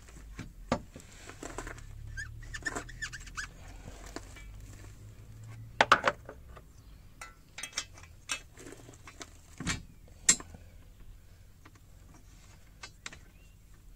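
Metal clinks and knocks of a coilover spring and its adjuster seat being worked by hand into the rear spring pocket of a BMW E36's suspension, with a cluster of sharp knocks about six seconds in and another near ten seconds.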